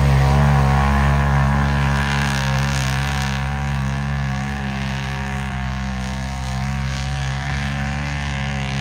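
Large engine of a mud bog racing vehicle running at steady speed, holding one pitch and slowly fading. It gives way suddenly to a louder, rougher engine sound at the very end.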